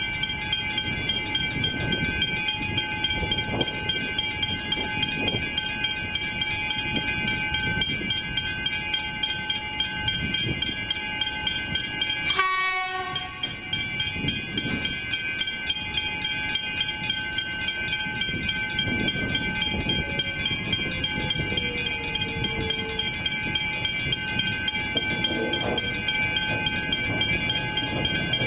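Level crossing warning bells ringing steadily, over the low rumble of an approaching X'Trapolis electric suburban train. The bells drop out briefly about halfway through.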